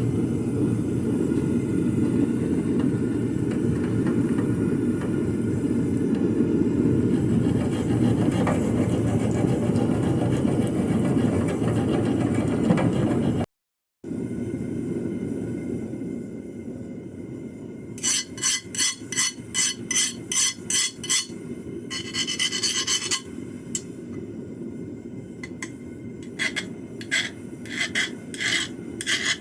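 A steady low mechanical rumble, then, after a cut, rhythmic hand strokes of an abrasive (file or sanding) scraping across the steel knife, about two to three strokes a second, with one longer scrape in the middle of the run.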